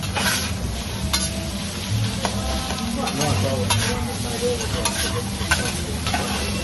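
Food sizzling on a teppanyaki griddle while metal spatulas stir and scrape it, with several sharp clicks of metal on the hot plate.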